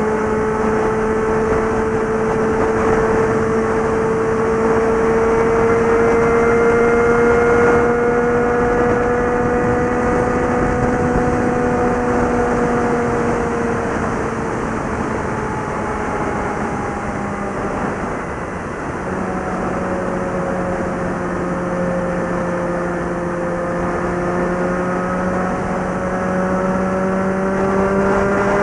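Suzuki GSX650F inline-four engine and exhaust at highway cruising speed, over steady wind rush. The engine note rises slowly, eases off and drops about two-thirds in, then climbs again.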